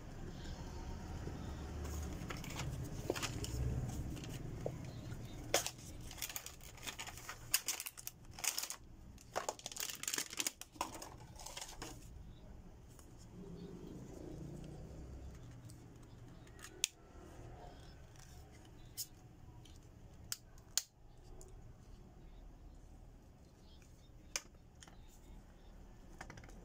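Folding desktop phone stands being handled and adjusted, their hinge joints clicking, with handling rustles. A dense run of clicks comes in the middle, then single clicks every few seconds.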